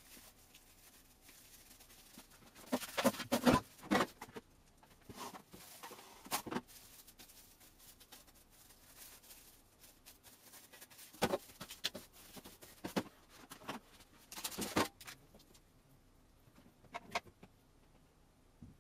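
Light clicks and knocks of objects being handled, in several short clusters with quiet gaps between.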